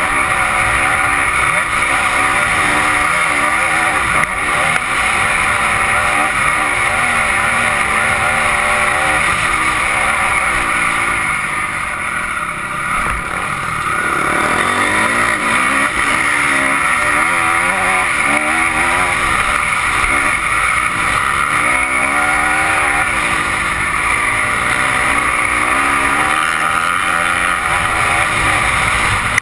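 Dirt bike engine heard from on board, revs rising and falling with the throttle as it rides a rough trail. About twelve seconds in the revs drop back, then climb again.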